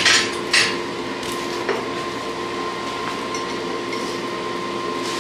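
Two metal clanks of tongs and steel in the first second. Then a steady whine and air rush from the coal forge's electric blower keeping the fire going.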